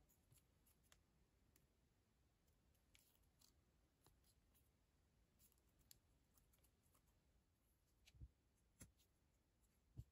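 Near silence: faint rustling and small ticks of green paper craft band being handled and tightened into a knot, with a few soft knocks in the last two seconds.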